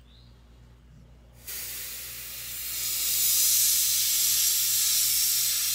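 Airbrush spraying paint onto a lure through a stencil: a steady hiss that starts about a second and a half in and grows louder about three seconds in.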